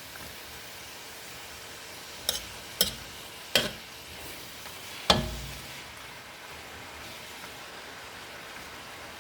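Cabbage, bacon and onions sizzling as they fry in a pot, a steady hiss. A utensil knocks sharply against the pot four times as it is stirred, about two to five seconds in, the last knock the loudest.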